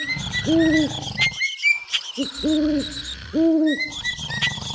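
Cartoon night-forest sound effects: an owl hooting three times, each hoot an arched tone, over a low snoring rumble that comes and goes, with repeated high chirps throughout.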